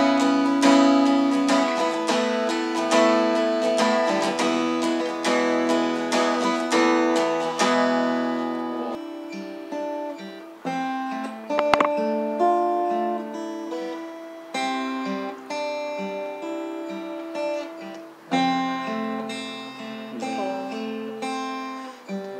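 Steel-string acoustic guitar played solo: busy strummed chords for about eight seconds, then slower, sparser picked notes and chords that gradually get quieter.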